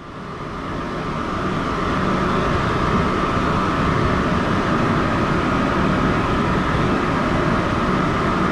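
Pet grooming dryer blowing air at the cat's coat, a loud steady rush with a thin motor whine, coming up over the first couple of seconds and then holding.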